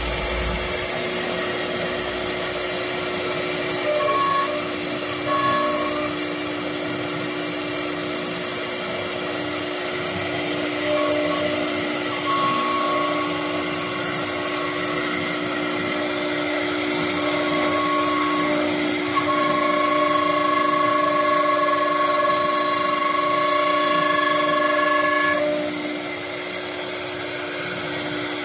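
Three-head CNC door lock and hinge machine running: a steady hum and hiss, with a higher spindle whine that switches on and off several times.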